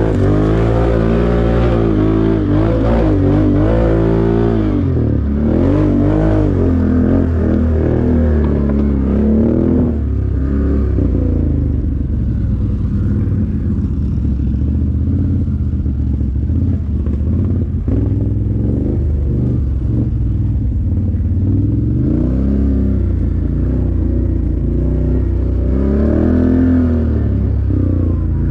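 ATV engine running and revving, its pitch rising and falling repeatedly, then holding steadier through the middle stretch before revving again near the end.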